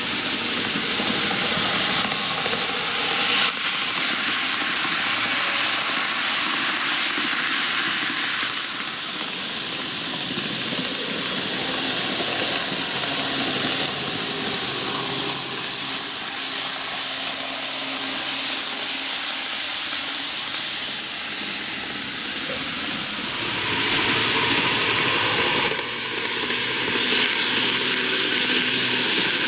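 N-gauge model of a Keihan electric train running on the track: a steady hiss and rumble of wheels on rail, louder again in the last few seconds as the train passes close.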